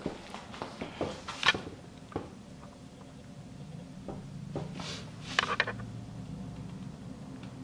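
Plastic knocks and clunks of a humidifier's refilled water reservoir being handled and set back into its base, the loudest about one and a half seconds in, with a brief scraping rattle around five seconds, over a faint low hum.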